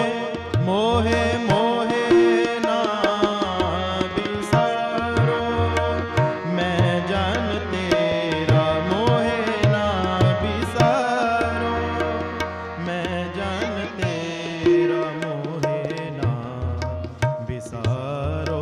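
Indian devotional music with tabla drumming a steady rhythm under a sustained melodic line.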